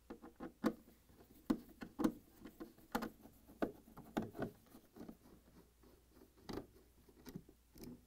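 A 1/4-inch nut driver turning out the screws of a refrigerator's rear access panel by hand: a run of small, irregular clicks and scrapes, a few a second.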